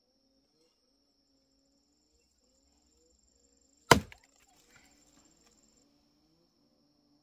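A single sharp chop, a blade striking wood, about four seconds in, followed by a few light ticks; a faint steady high tone runs underneath.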